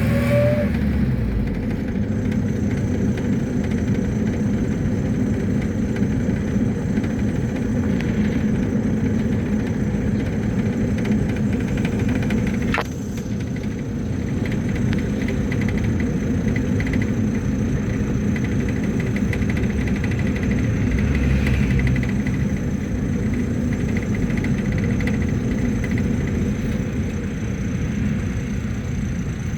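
Mercedes-Benz T1 minibus heard from inside the cabin while riding, with a steady engine and road rumble. A single sharp click comes about halfway through.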